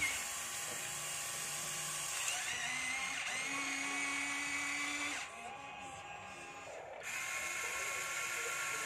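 Electric gear motors of an RC toy excavator whining as its boom, arm and bucket move, with the pitch sliding as the motors start and stop. The motors go quieter for a second or two past the middle, then pick up again.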